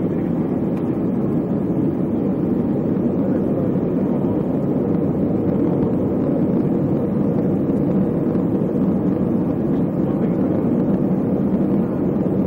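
Steady low drone of an Airbus A320 airliner in flight, heard from inside the cabin: engine and airflow noise, even and unchanging.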